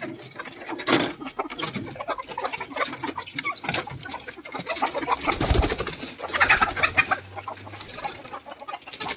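A flock of native country chickens clucking and calling, with scattered knocks and rustles and a dull thump about five and a half seconds in.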